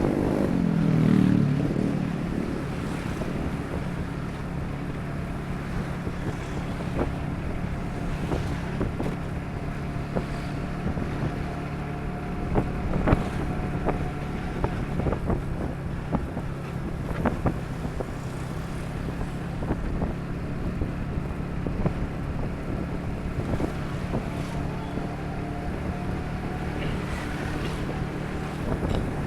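Motorcycle riding along a road at speed: a steady engine hum under wind buffeting the microphone. The engine note falls about a second in, and a few sharp knocks come through.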